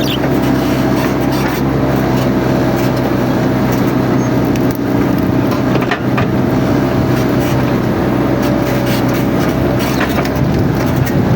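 Mini excavator's diesel engine running steadily with a higher steady whine above it, and scattered sharp clicks and cracks through the run.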